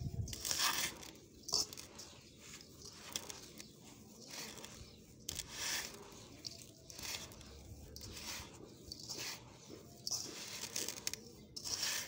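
A hand digging into and crumbling a heap of gritty yellow sand, each stroke a dry, crunchy rustle of grains, repeating about once a second.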